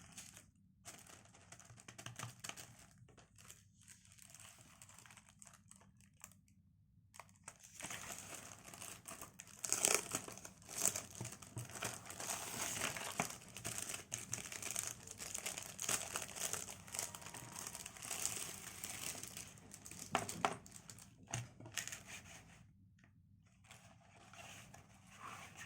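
Packaging being unwrapped by hand, crinkling and tearing. Scattered and soft at first, then continuous crinkling through the middle stretch, easing off near the end.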